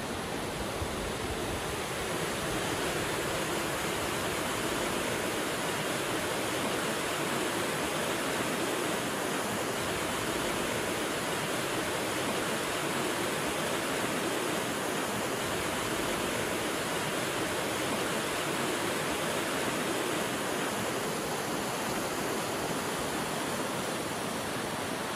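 Mountain creek rushing over rocks: a steady, even white-water noise that does not change.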